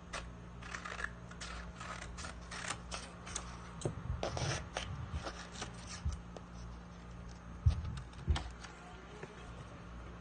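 Sheet of paper rustling and crackling as it is handled and folded, with two sharp knocks close together late on.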